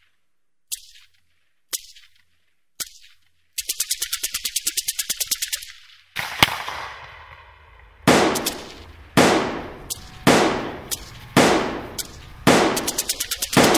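Rifle gunfire: three single shots about a second apart, then a rapid automatic burst of about eight shots a second lasting some two seconds. Then a string of heavier shots about once a second, each ringing out with a long echo, and another quick burst near the end.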